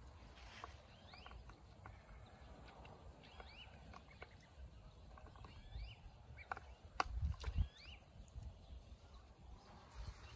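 Ducklings peeping: short, high, rising peeps scattered throughout. A few knocks and low thumps about seven seconds in, as one duckling climbs into the plastic water basin.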